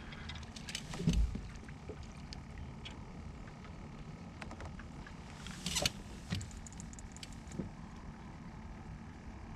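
Knocks and clicks of gear being handled on a fishing boat over a steady low hum. One heavy thump comes about a second in, and a cluster of sharp clicks falls near the middle.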